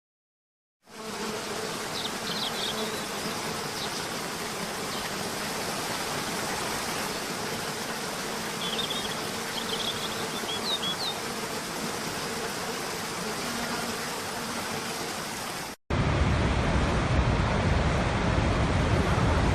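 A steady buzzing hum over an even rushing hiss, with a few faint, short high chirps. After a sudden cut near the end, a louder, deeper rushing noise takes over.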